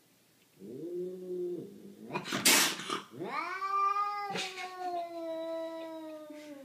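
Cat caterwauling in a standoff with another cat: a short low yowl, a sharp hiss, then a long drawn-out yowl that slowly falls in pitch.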